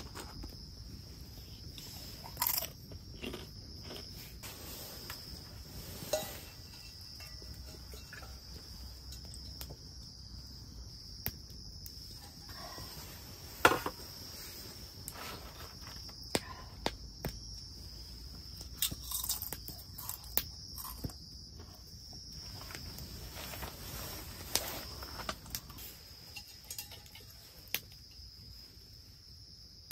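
Insects chirring steadily in one high, even band, with scattered sharp clicks and knocks over it; the loudest knock comes about halfway through.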